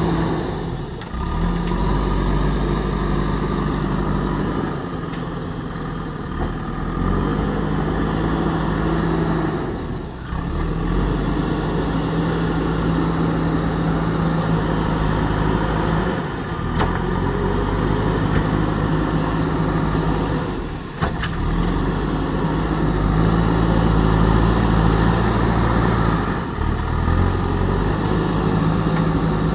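Diesel engine of a JCB backhoe loader running steadily as it loads soil with its front bucket, its pitch and loudness rising and falling with the work, with a tractor engine also running.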